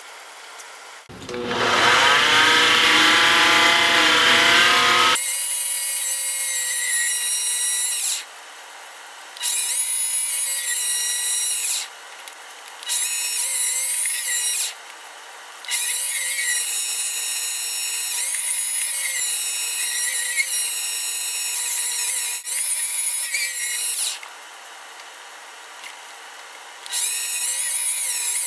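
Mini lathe turning an aluminium part: the motor whines steadily while the cutting tool hisses through the metal in passes, stopping briefly four times between them. A louder, rougher sound fills the first few seconds.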